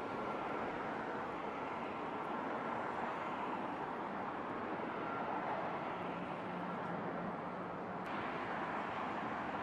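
Steady outdoor traffic noise, a continuous vehicle rumble with no single event standing out.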